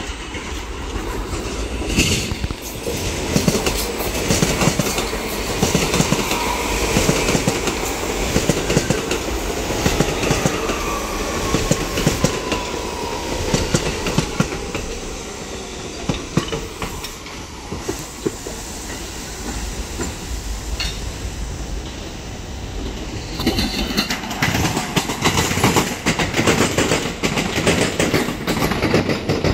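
New York City subway trains running through the station: a steady rumble with wheels clacking over rail joints. From about ten seconds in, a whine falls in pitch for several seconds as a train slows. The clacking grows louder and busier near the end.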